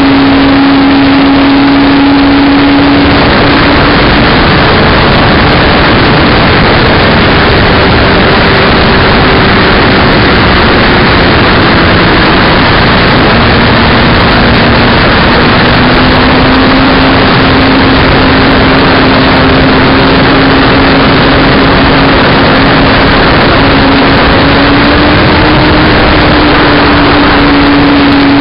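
Loud wind rushing over the microphone of a camera carried aloft, with a steady hum that wavers in pitch, dipping about halfway through and rising again near the end.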